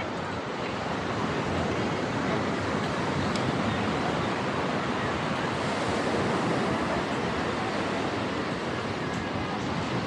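Ocean surf breaking and washing onto a sandy beach: a steady rushing that swells slightly in loudness over the middle.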